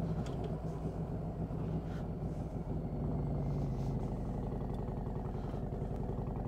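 Motorcycle engine running steadily at low road speed, heard from on the moving bike.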